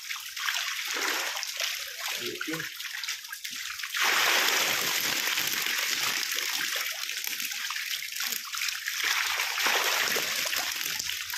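Water splashing and pouring as a plastic mesh basket is dipped into a shallow pond crowded with tilapia and lifted out, water draining through the mesh while the fish thrash at the surface. The water noise gets louder and steadier about four seconds in.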